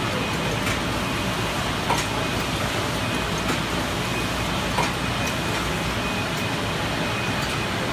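Automated PCB assembly machinery running: a steady mechanical hum and hiss, with scattered light clicks and a faint high whine that comes and goes.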